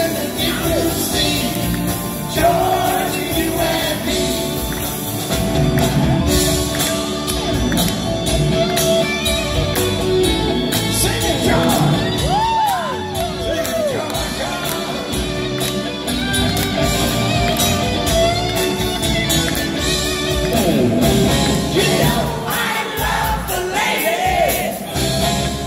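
Live rock band with a male lead singer: sung vocals over electric guitar and drums, heard in a large hall.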